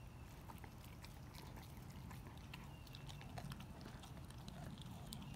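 A dog chewing and licking at a raw whole lake herring: faint, scattered clicks and crunches from its mouth on the fish, over a steady low background rumble.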